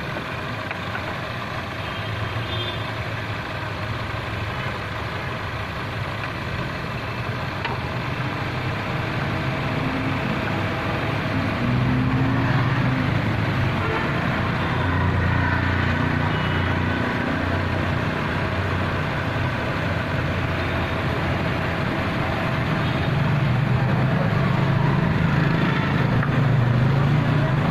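Motor vehicle engine running, a steady low rumble that grows louder about twelve seconds in.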